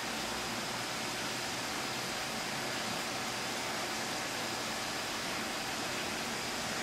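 Steady, unchanging rushing hiss of aquarium fish-room equipment: running water and aeration, with a faint high whine held throughout.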